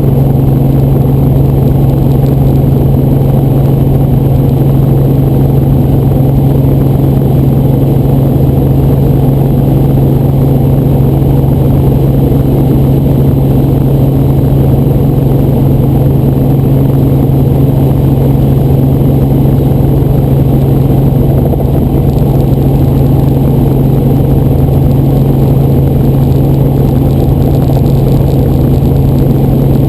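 Helicopter running: a steady, loud drone with a strong low hum that holds unchanged throughout.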